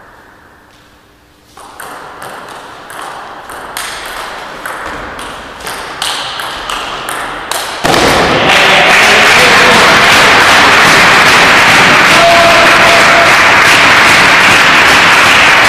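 A table tennis rally: a celluloid-type ball clicking back and forth off the bats and the table, about two hits a second, growing louder. About eight seconds in the rally stops and a loud, steady rush of noise takes over.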